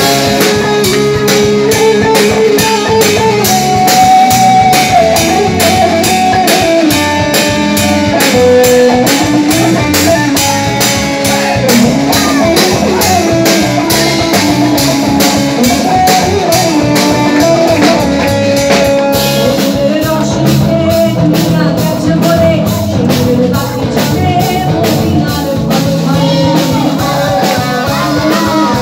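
Live band playing a Bengali song: a woman singing over electric guitar with a steady beat.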